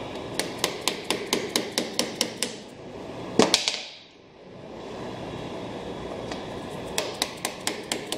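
Quick light taps of a plastic-headed hammer on a socket held in a bench vise, about five a second, driving a heat-softened nylon seat gear onto a splined metal shaft. A louder double clatter about three and a half seconds in as the hammer is put down on the concrete floor, then a second run of taps near the end.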